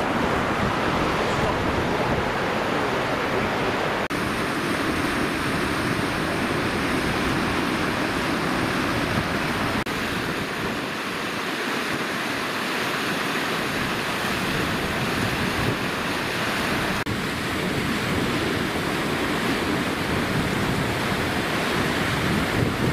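The River Irwell in flood, a steady rush of fast, swollen water, with some wind on the microphone. The sound shifts abruptly a few times as the shots change.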